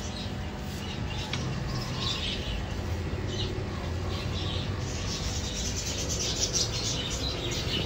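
Small birds chirping and twittering, thickening into dense rapid twittering about two-thirds of the way through, over a steady low background hum.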